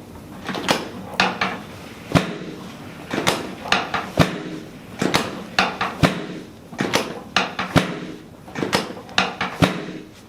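A run of about fifteen sharp clacks and knocks, irregularly spaced at roughly two a second, each with a short ringing tail.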